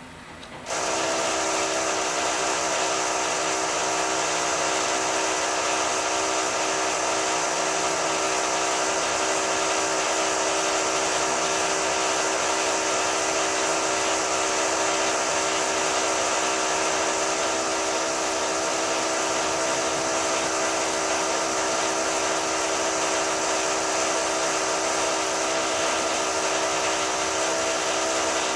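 High-pitched power drill from building works starting suddenly under a second in, then running steadily and loudly without a break.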